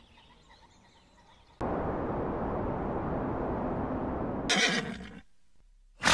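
A horse makes two short, loud calls near the end, the second the louder. Before them comes a steady rushing noise that starts abruptly about a second and a half in.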